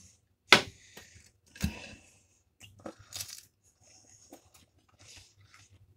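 A few sharp clicks of a metal knife and fork against a plate, then a breaded chicken nugget being bitten and chewed with faint crunching.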